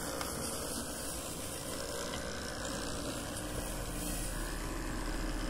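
Steady whir and hiss of a DIY electric lawnmower cutting grass. Its brush-cutter blade is spun by a 120 W 24 V electric-scooter motor.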